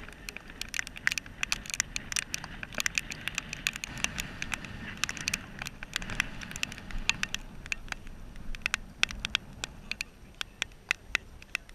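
Dense, irregular sharp clicks and crunching close to the microphone, from medical gear being handled and feet shifting on gravel.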